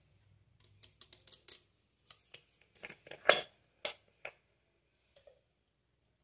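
A run of small, sharp plastic clicks and taps as a facial mist spray bottle is handled and its cap is worked. The loudest click comes about three seconds in, and the clicks stop after about four and a half seconds.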